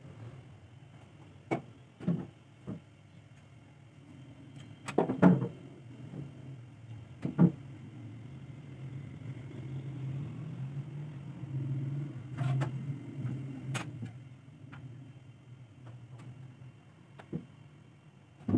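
Scattered clicks and taps of small metal parts being handled as a generator carburetor's float bowl is fitted onto its body, the loudest a pair of knocks about five seconds in and one about seven seconds in. Under them runs a steady low hum that swells in the middle and then eases.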